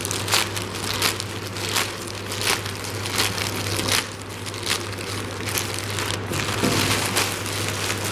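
Plastic courier mailer being pulled open and crumpled by hand: an irregular run of crinkles and crackles of the plastic.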